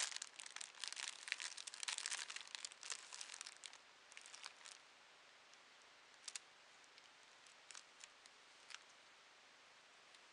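Clear plastic sleeve around a bunch of leaf lettuce crinkling as a hand handles it. Dense crackling for the first four seconds or so, then a few scattered crinkles.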